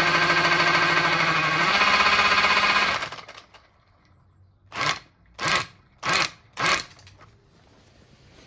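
A small electric motor whirs up to speed and runs steadily for about three seconds, stepping up in pitch once before stopping. Then come four short, evenly spaced hissing bursts.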